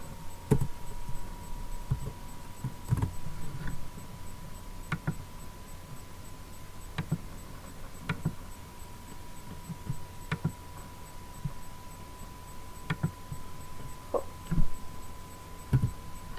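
Computer keyboard and mouse clicks, about a dozen separate taps at irregular intervals, over a low electrical hum and a faint steady high whine.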